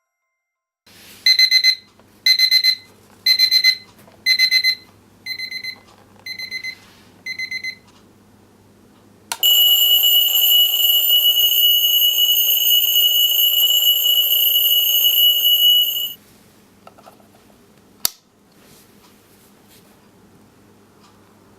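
Seiko KR887 children's alarm clock's electronic alarm beeping in seven short bursts of rapid high beeps about once a second, the last three quieter. It is followed by a continuous high-pitched tone lasting about six seconds. A single sharp click comes near the end.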